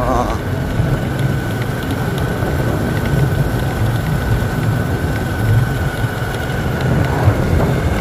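Wind buffeting the microphone over the steady running of a vehicle on the move, with a faint steady high whine throughout.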